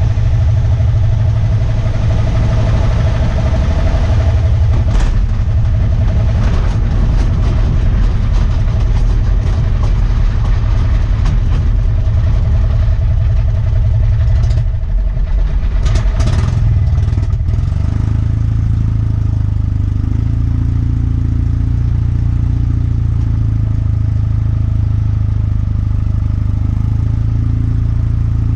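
Aeronca C3's two-cylinder engine running at taxi power with the propeller turning, heard from the cockpit, its exhaust valves freshly cleaned and lapped. About halfway through the sound dips briefly and a few clattering knocks come through, then the engine settles to a steady note.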